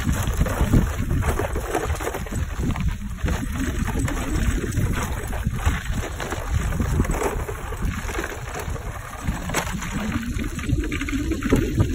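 Wind rumbling on the microphone over a Permobil power wheelchair rolling up a gravel driveway, its tyres crunching on the loose stones in a constant scatter of small crackles.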